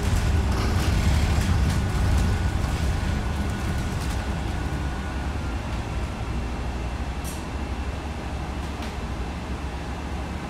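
Interior noise of a moving city bus: the engine and road rumble, steady and low, easing off gradually. There is a short hiss about seven seconds in.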